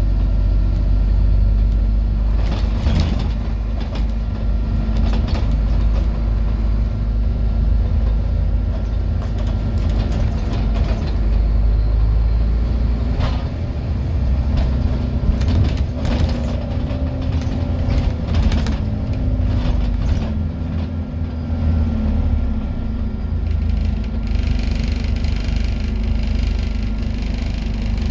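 Scania N230UD Enviro400 double-decker bus heard from inside the passenger saloon on the move: a low diesel drone that rises and falls in pitch as the bus pulls away and changes gear, with short rattles and knocks from the body and fittings. A hiss of air comes in for a few seconds near the end.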